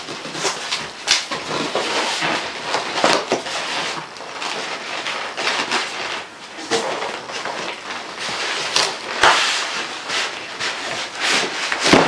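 Plastic wrapping rustling and crackling, with cardboard and foam packing scraping and knocking, as a computer case is worked loose inside its shipping box. A continuous crinkling noise dotted with many sharp clicks.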